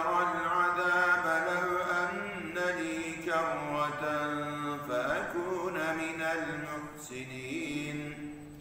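A man's voice reciting the Quran in Arabic in a slow, melodic chant, holding long drawn-out notes that bend and glide in pitch. The phrase tapers off near the end.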